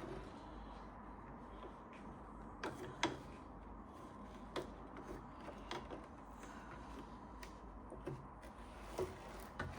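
A few faint, scattered clicks and light knocks of small parts being handled, over a low steady hum.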